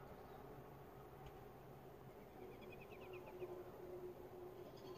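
Near silence: faint room tone with a low steady hum, and a short, faint run of rapid chirps a little past the middle.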